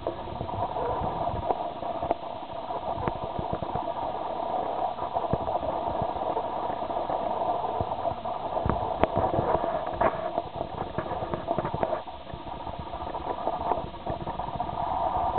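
A steady mechanical hum runs underneath light crunching and crackling of bark mulch as a puppy sniffs and steps about in it.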